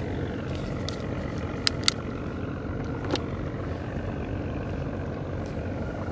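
Small riverboat engine running steadily at idle, a low even hum, with a few sharp clicks about two and three seconds in.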